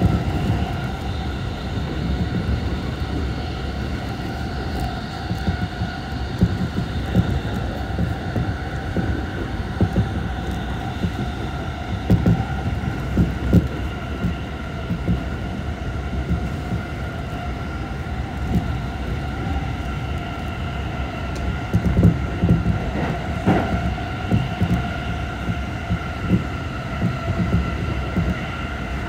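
Inside a commuter electric train at speed: a steady rumble of wheels on rail with a steady whine over it, and groups of clacks as the wheels cross rail joints, twice, about twelve and twenty-two seconds in.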